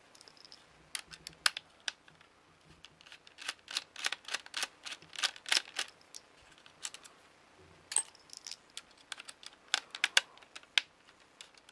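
Hard plastic clicks and taps as the empty plastic case of a card terminal is handled and turned over, then a precision screwdriver clicking on a screw in the metal bracket inside the case. The clicks come in quick irregular runs, thickest midway and again near the end.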